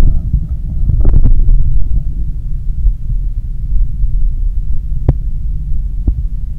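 A human heartbeat heard through a stethoscope, low and throbbing, as the heart recovers after a 10 km run. A few sharp clicks stand out, the clearest about five seconds in.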